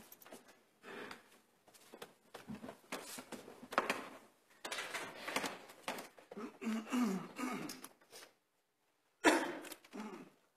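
Scattered rustling, shuffling and small voice noises such as coughs and murmurs as choir members stand and move into place, with one louder short sound about nine seconds in.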